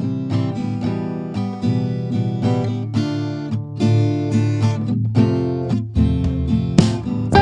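Background music led by acoustic guitar, with a lower bass part coming in about six seconds in.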